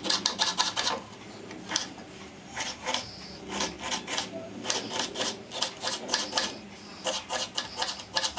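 Kitchen knife finely chopping a green capsicum on a wooden cutting board: quick knocks of the blade on the board, several a second, in runs broken by short pauses.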